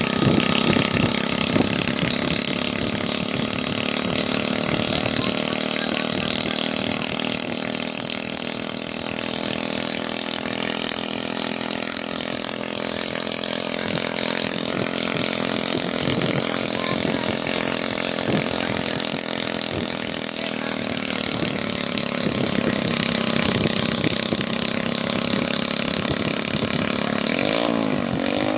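Engine of a homebuilt ultralight helicopter running steadily with its main rotor turning during a ground test run. Near the end, the pitch briefly wavers up and down.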